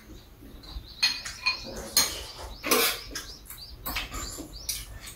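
Eating sounds of two people: chewing, with a spoon and chopsticks clinking and scraping against bowls in short, irregular bursts.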